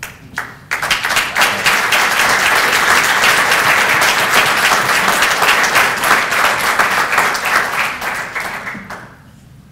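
Audience applauding: a couple of lone claps, then the whole room joins in about a second in and claps steadily before fading out near the end.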